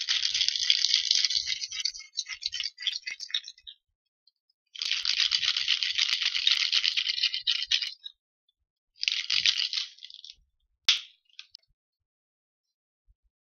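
Ice cubes rattling hard inside a cocktail shaker being shaken. It comes in three bouts: a few seconds at the start, another a few seconds about midway, and a short one about two-thirds in. A single sharp knock follows near the end.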